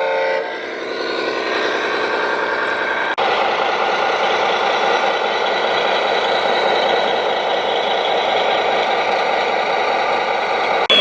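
Radio-controlled construction machine running: a steady mechanical motor and drive noise with some rattle, which breaks off abruptly about three seconds in and picks straight up again.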